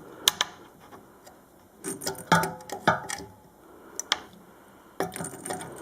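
Scattered clicks and knocks of a screwdriver working the screws of a ceiling fan's metal switch plate, with a small cluster of handling sounds about two seconds in.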